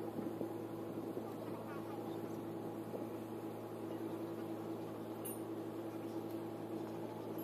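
A steady, even mechanical hum, with faint distant voices over it.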